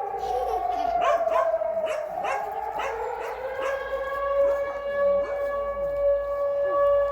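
Air raid siren wailing on a steady tone, with a second tone sliding down and then back up during the first few seconds. Over it a dog barks and yelps rapidly, the barks thinning out after about three and a half seconds.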